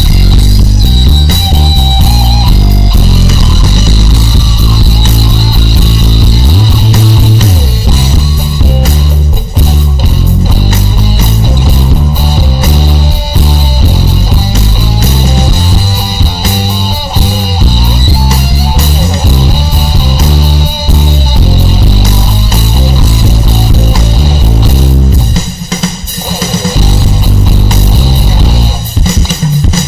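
Instrumental rock music with guitars and a heavily boosted bass. The bass drops out for about a second near the end.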